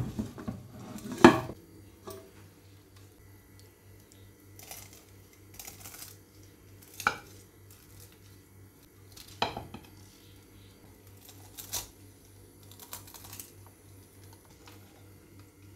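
A metal pot knocks against a plate as it is lifted off, with a loud clank about a second in. Then a pie server crunches through the crisp tahdig rice crust in about six separate strokes.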